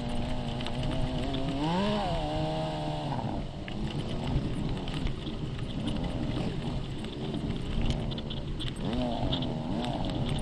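VW dune buggy engine running under load while towing a disabled buggy up rough rock, revving up about two seconds in and again near the end. Short clattering rattles sound over it.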